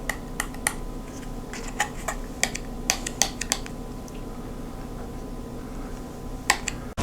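Scattered light clicks and taps of small items being handled, about a dozen irregular ones, over a faint steady hum.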